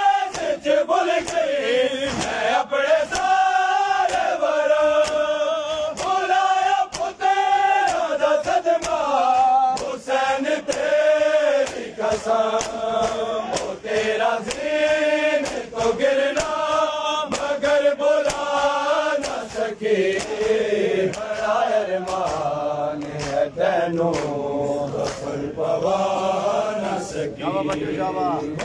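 Men chanting a noha (Shia lament) together in repeated rising and falling phrases, over a steady beat of sharp slaps from hands striking chests in matam.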